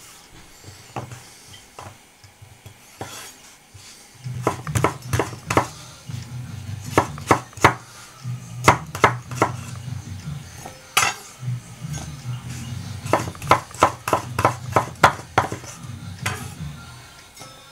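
Ikea Slitbar kitchen knife making quick runs of sharp clicks, about four to five a second, with short pauses between the runs, over a low steady hum.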